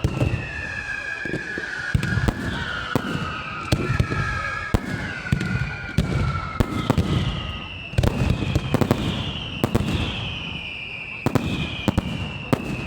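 Fireworks display: whistling shells sending out overlapping whistles that slide down in pitch, over clusters of sharp bangs from bursting shells every second or two.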